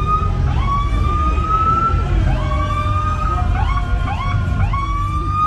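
A siren sounding from a parade vehicle: a tone that rises slowly, drops back and starts again, repeating, with a few quick stepped notes in the middle. A steady low rumble runs under it.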